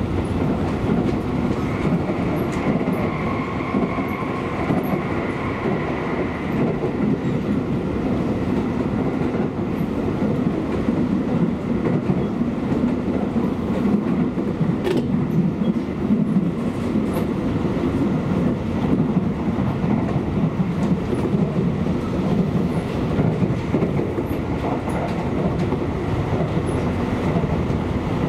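Seibu Railway commuter train running along the line, heard from on board: a steady rumble of wheels on rails and motors. A faint high whine sounds for a few seconds near the start, and a single sharp click comes about halfway.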